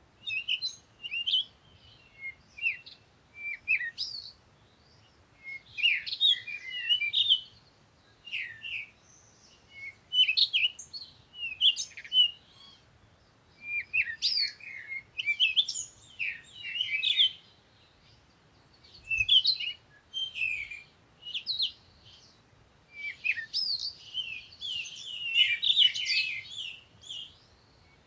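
Small birds chirping and twittering in short bursts of quick, high notes, a new burst every second or two with brief pauses between.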